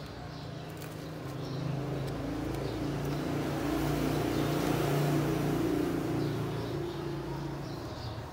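A motor vehicle passing by: a steady engine hum with road noise that grows louder to a peak about halfway through, then fades away.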